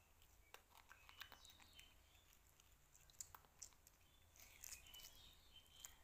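Faint close chewing and biting: a baby macaque gnawing a ripe plum, with scattered wet clicks and smacks. A few short high-pitched chirps come about a second in and again near the end.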